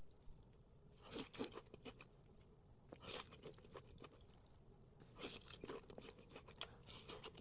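A person biting and chewing crunchy food close to the microphone, in several short bursts of faint crackling crunches.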